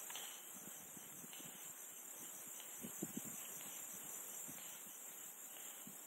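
Faint rustling and light taps of fingers pressing adhesive grip tape onto a pistol slide, a little stronger about halfway through, over a steady high hiss.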